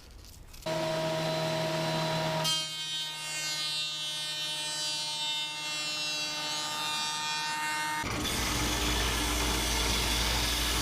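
An electric power tool's motor running with a steady whine, its pitch and tone changing abruptly about two and a half seconds in, and again near the end, when a lower hum with a hiss takes over.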